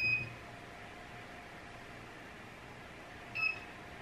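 A battery spot welder's buzzer beeping as the welder is powered on with a long press: a high beep ends just after the start, and one short beep comes about three and a half seconds in.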